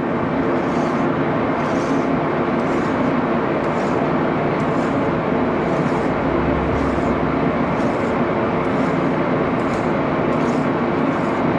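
Axelson engine lathe running steadily with a gear hum while a hand file strokes against the spinning threaded workpiece about one and a half times a second, deburring a freshly cut thread.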